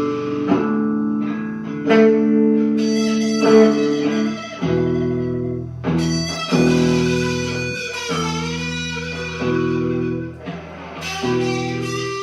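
Blues played on guitar: ringing chords and single notes with string bends, and a deeper part coming in about four and a half seconds in.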